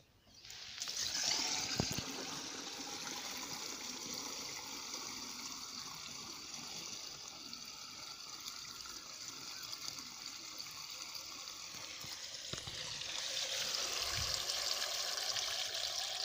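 Water poured from a terracotta pot through the mesh strainer into a plastic knapsack sprayer tank, filling it for a spray mix. It is a steady splashing pour that grows louder about thirteen seconds in.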